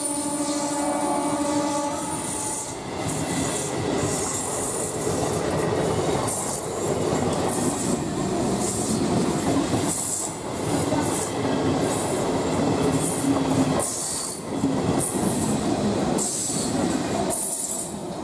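EMU local train passing close by. A train horn holds a steady chord and stops about two seconds in. After that, the train's wheels rumble on the rails, with a loud clatter over the rail joints repeating about once a second.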